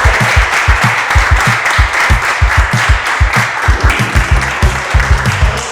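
Applause and clapping, fading about four seconds in, over background music with a steady thumping beat.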